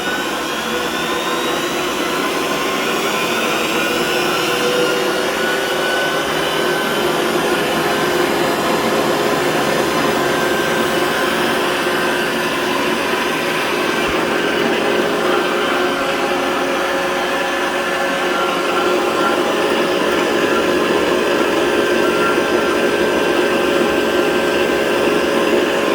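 Homemade wood lathe driven by an electric motor salvaged from a Craftsman table saw, running steadily with a whine. It is finishing its run-up to speed in the first couple of seconds.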